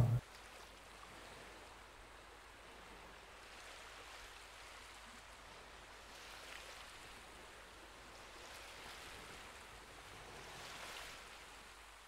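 Faint sound of small sea waves washing gently at the shore: a soft, even wash that swells slightly about six seconds in and again near the end.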